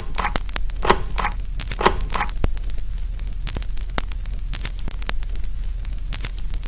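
Crackling static with many irregular sharp clicks over a steady low hum, with a few louder short pops in the first two seconds.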